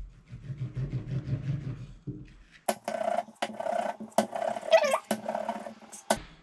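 Wooden rolling pin rolling paratha dough on a silicone mat, a low pulsing rub. About two and a half seconds in it gives way to a brighter stretch with several sharp clicks as the rolled dough is handled.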